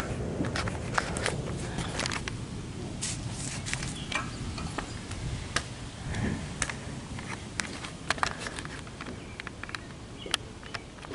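Scattered sharp pops and crackles of firecrackers going off at irregular intervals, over a low steady background rumble.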